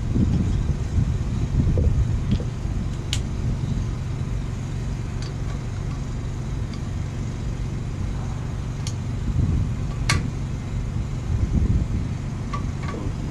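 Two sharp metallic clinks of hand tools against a heavy truck's rear wheel hub, about three seconds in and again about ten seconds in, with a few fainter ticks between. Under them runs a steady low rumble.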